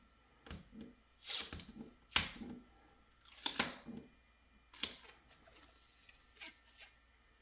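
Small 3D-printed plastic pieces being handled and moved about: several short scraping rustles and light clicks, with a sharp knock about two seconds in.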